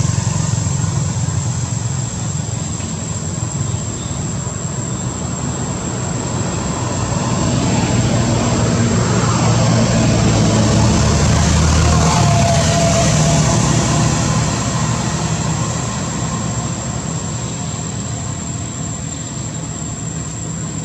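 Low rumble of motor traffic that swells louder about eight seconds in and fades again after about fourteen seconds, over a steady high-pitched tone.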